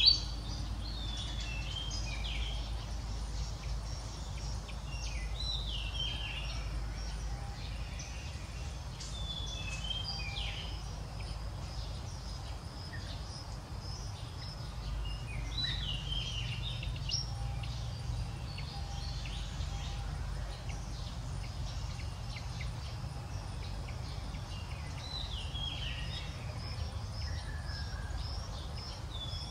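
Outdoor ambience: a steady low rumble with scattered short, high chirping calls, each falling quickly in pitch, coming every second or two.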